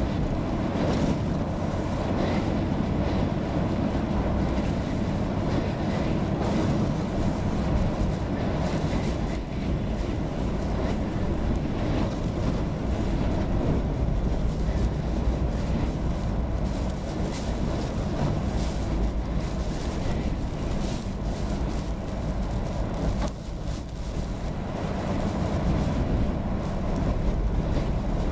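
Steady low rumble inside a car driving on a rain-soaked road, with tyre noise and storm wind buffeting the car during Hurricane Irene. The level dips briefly about three-quarters of the way through.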